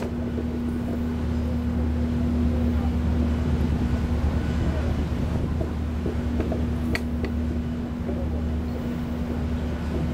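Steady low drone of a cruise ship's machinery under way, with a constant hum and wind on the microphone. A single short click about seven seconds in.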